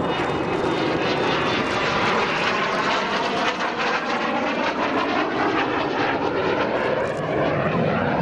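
A Kawasaki T-4 jet trainer's twin turbofan engines during a low display pass: a steady, loud jet noise that holds throughout.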